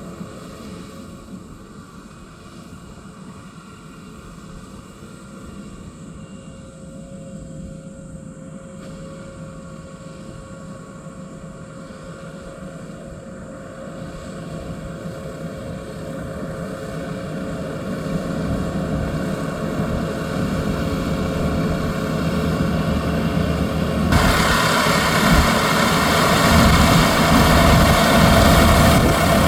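Yanmar YH6115 six-row combine harvester running while harvesting rice, a steady engine drone that grows steadily louder as the machine draws closer. About 24 seconds in, a loud rushing, threshing-like noise suddenly joins the drone.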